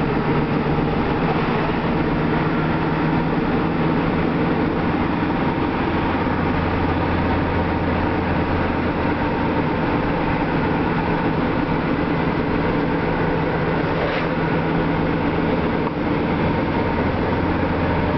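Steady engine hum and road noise of a moving vehicle, heard from inside it while driving, with an unchanging low drone.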